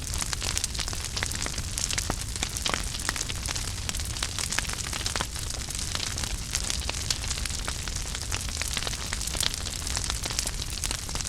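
Wood fire burning in a fireplace, crackling with frequent sharp pops and snaps over a steady low rumble and hiss of the flames.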